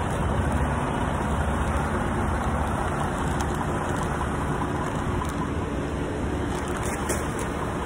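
Steady low rumble of road traffic and idling engines.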